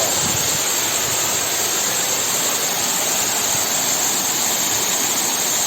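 Waterfall, water falling and rushing in a steady, unbroken roar of noise.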